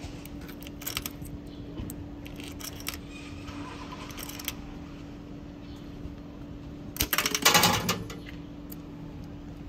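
Coins clinking and clicking into a vending machine, then a louder rattling clatter from the machine lasting about a second, starting about seven seconds in, over a steady low hum.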